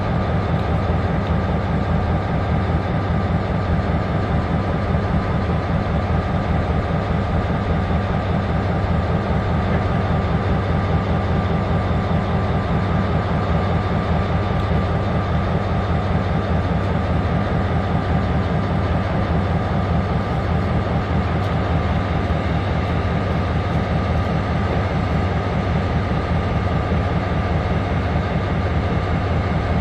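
Diesel freight train running: an EMD GP38-3 locomotive's engine with a steady low throb and a faint steady tone above it.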